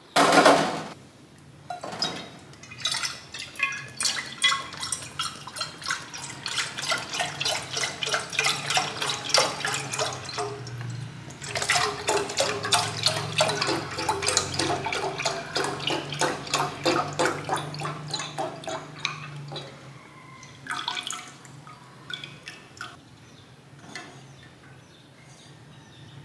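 A saucepan set down on a gas-stove grate with a sharp knock, then milk glugging out of a one-litre carton into the pot in a long run of rhythmic gurgles that taper off after about twenty seconds. Fainter pouring and handling follow near the end.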